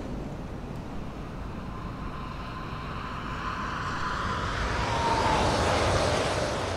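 A high-speed electric train passing on an elevated viaduct. A rushing noise builds over a few seconds to a peak about five to six seconds in, with a whining tone that drops slightly in pitch as the train goes by.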